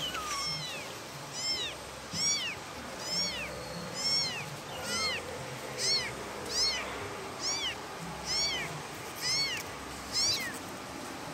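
Young kittens meowing over and over, a dozen or so high-pitched mews, each rising then falling in pitch, less than a second apart: kittens calling for their mother.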